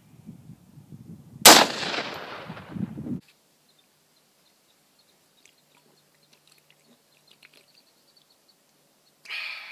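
A single gunshot about a second and a half in, its echo rolling away for over a second before the sound cuts off. Near silence with faint ticks follows, and there is a short breathy sound near the end.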